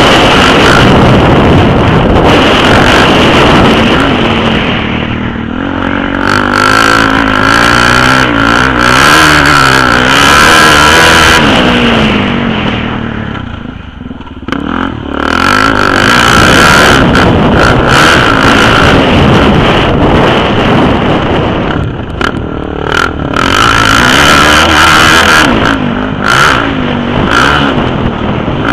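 Suzuki DR-Z400's single-cylinder four-stroke engine running loud under hard throttle, its pitch rising and falling again and again. The throttle comes off briefly about 5, 14 and 22 seconds in before the engine pulls up again.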